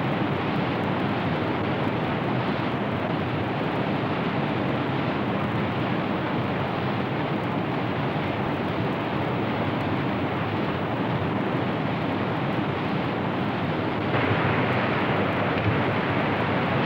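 Whitewater rapid rushing, a steady noise of fast, churning river water that grows a little louder and brighter about fourteen seconds in.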